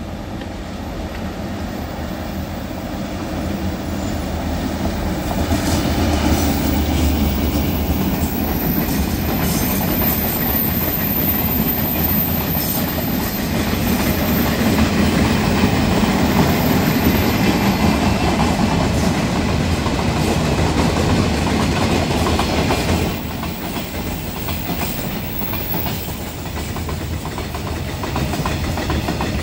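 Taiwan Railway train hauled by the R171 diesel-electric locomotive running through the Caoling Tunnel: a steady, loud rumble with clickety-clack from the wheels over rail joints. It grows louder towards the middle and drops back a little near the end.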